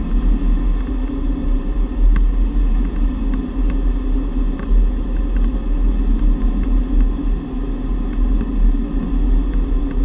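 Steady low rumble of air rushing past the cockpit of a G103 Twin Astir glider on aerotow, with a few faint ticks.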